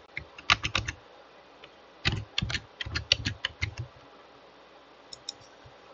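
Computer keyboard typing in short bursts of keystrokes, a few keys at a time with pauses between, then a couple of lighter clicks near the end.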